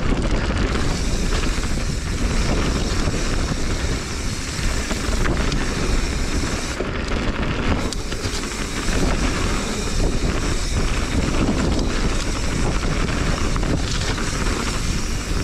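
Wind rushing over the action camera's microphone while a mountain bike rolls down a dirt singletrack, with the tyres rumbling on the dirt.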